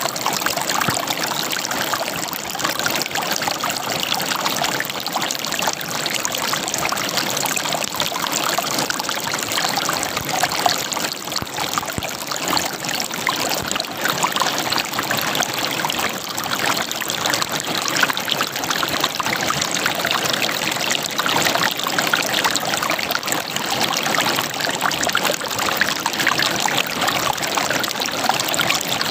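River water gurgling and splashing over rocks, a steady babbling flow.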